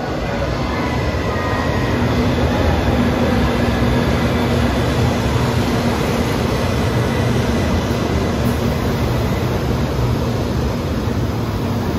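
Type 923 'Doctor Yellow' Shinkansen inspection train running into the station platform past the listener: a steady rumble of wheels on rail with a low, even hum underneath.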